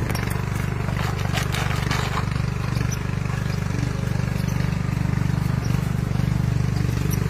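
A small engine drones steadily with a fast, even pulse. A few light clicks and scratches sound over it, mostly in the first two seconds.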